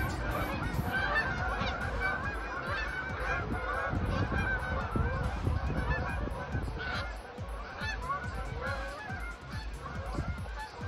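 A large flock of geese honking in flight overhead, many calls overlapping into a continuous chorus.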